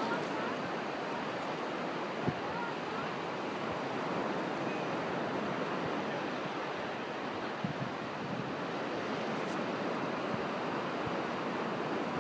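Steady wash of surf with wind on the microphone, and a brief knock about two seconds in.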